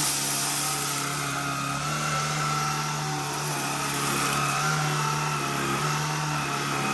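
Shark IZ320UK cordless stick vacuum running, its motor giving a steady low hum and a higher whine that waver slightly in pitch as it is pushed across the floor.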